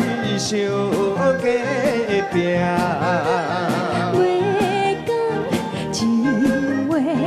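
A woman singing a Taiwanese Hokkien pop duet line with vibrato into a microphone, backed by a live band with a steady drum beat.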